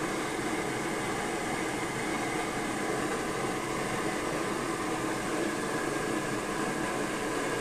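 Borde self-pressurizing naphtha stove burning steadily under a pot of water that is close to the boil: an even, unbroken rushing noise.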